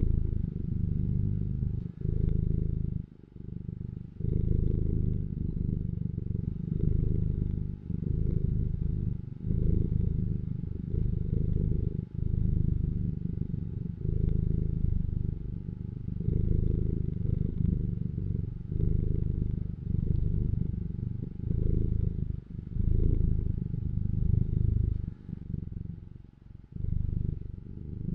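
Domestic cat purring close to the microphone: a low, steady rumble that swells and eases with each breath, breaking briefly about every two seconds.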